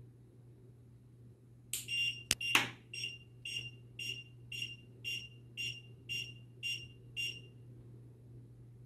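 Piezo buzzer on an SSRT weigh scale motherboard beeping on power-up while the display runs its self-test. It gives one longer high beep with a sharp click, then about ten short beeps at about two a second, which stop near the end. A faint low hum runs under it.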